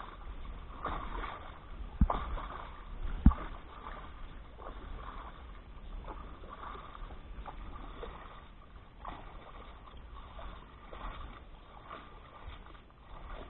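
Water lapping and splashing against the hull of a small outrigger boat, with two sharp knocks on the boat at about two and three seconds in.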